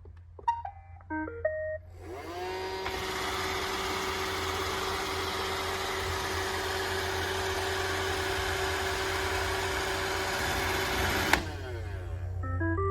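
iRobot Roomba 640 robot vacuum playing a short beeping tune of stepped tones, then its motors spinning up with a rising whine and running steadily for about nine seconds. The motors cut off suddenly and the robot plays another short beeping tune near the end.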